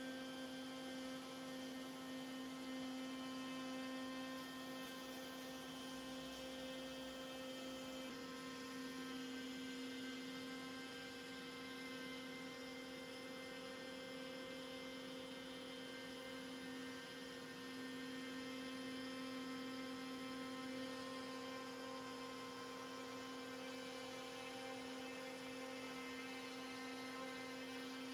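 A steady electric hum made of a few fixed tones over a faint hiss, with a slight change in the tones about eight seconds in.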